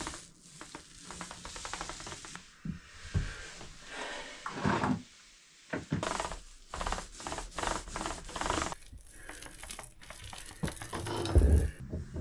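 Paintbrush strokes rubbing over a surface, irregular, with scattered clicks and knocks.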